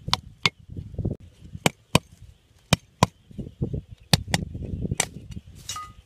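Machete chopping a thin wooden stick: about nine sharp cuts, mostly in pairs, with rustling and handling noise between the strokes.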